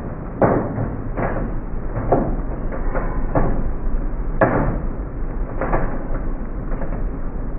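Thunder from a close lightning strike: a string of sharp cracks and rumbles, roughly one a second, the sharpest about four and a half seconds in.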